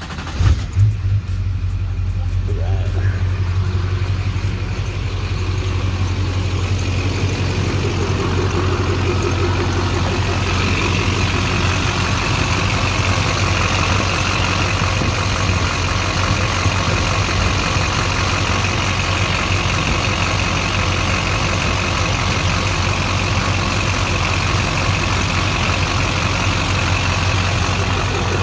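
LB7 Duramax 6.6-litre V8 turbo-diesel cranking and catching about half a second in, then idling steadily. A higher whine joins the idle from about ten seconds in.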